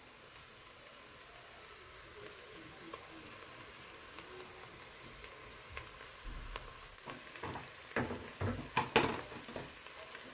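Beef and onions frying in a stainless steel saucepan, a steady low sizzle. From about six seconds in come a series of knocks and scrapes of stirring in the pot, loudest near nine seconds.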